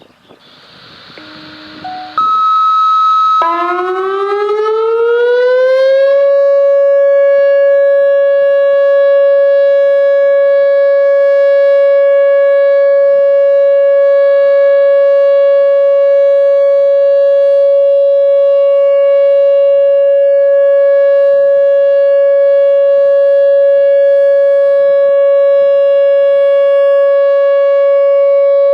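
Whelen OA2 outdoor warning siren sounding its steady alert signal for a test. After a couple of short steady beeps its tone climbs in pitch for about three seconds, then holds one steady, unbroken wail.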